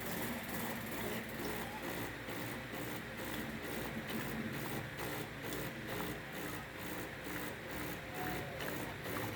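Espresso machine dispensing hot water into a cup to make a long black: a steady mechanical hum that pulses evenly about three times a second.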